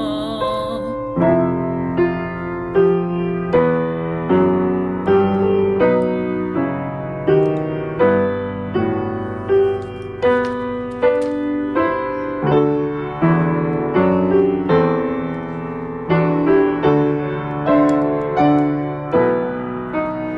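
Piano playing a slow, gentle hymn-like passage on its own. Chords are struck in a steady rhythm, a little more than one a second.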